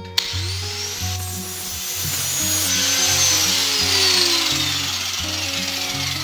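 Angle grinder with a flap disc starting up with a rising whine, then grinding burrs off welded scrap steel with a loud hissing rasp. Its whine falls steadily in pitch through the second half.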